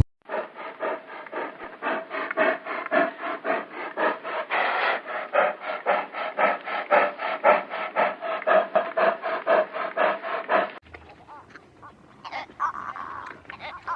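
An animal call made of a fast, rasping train of pulses, about four a second, that keeps going for roughly ten seconds and then stops abruptly.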